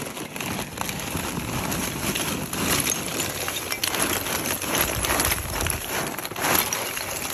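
Lump charcoal being poured out of a paper sack into a barbecue pit: the lumps clatter and tumble onto the pile while the paper sack rustles, with a louder rush of charcoal near the end.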